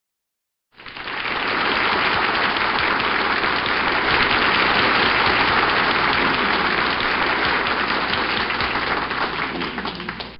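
Applause from an audience, fading in about a second in, holding steady, then cutting off suddenly.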